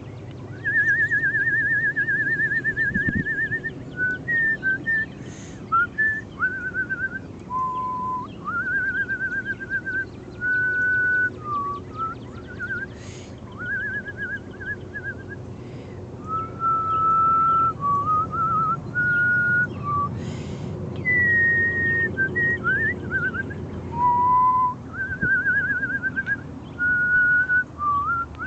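A person whistling a wandering tune of clear held notes, short slides and a few warbled notes, in phrases with short pauses between them.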